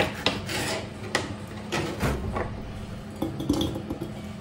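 Small kitchen knife cutting red bell pepper on a plastic cutting board: a run of sharp knocks and scrapes as the blade hits and drags across the board, with the pieces scraped off into a glass jar.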